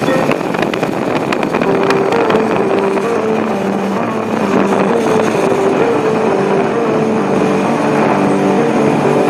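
Motorcycle riding at steady speed on an open highway: engine running under heavy wind noise on the microphone, with passing traffic.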